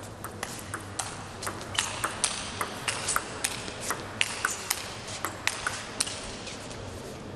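A long table tennis rally: the celluloid ball clicking sharply off the rackets and the table in a quick, irregular back-and-forth, a few hits a second.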